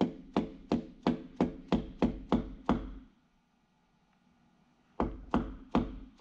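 A mallet tapping a piston down through a ring compressor into a cylinder liner of a John Deere 6.8-litre PowerTech diesel. About three sharp knocks a second, each with a short ring, stop about three seconds in and start again about two seconds later.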